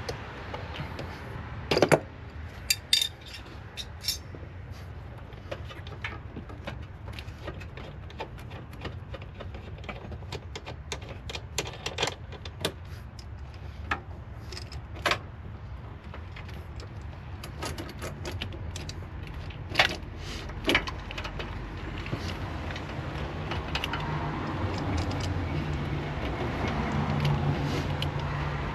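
Hand tools and metal fittings clinking and clicking in scattered taps as the bottom line is worked off an A/C evaporator. The sharpest clinks come about two seconds in and again around twenty seconds.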